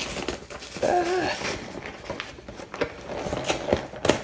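Cardboard packaging being handled and opened: a run of taps, clicks and rustles, with a sharp knock just before the end. A brief vocal sound comes about a second in.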